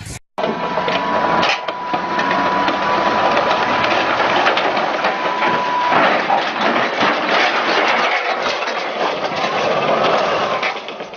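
Tracked armoured vehicle's engine running and its steel tracks clattering and grinding on a lowboy trailer's deck, with scraping and crunching as it slides off the side. A steady high tone sounds through the first half and stops about midway.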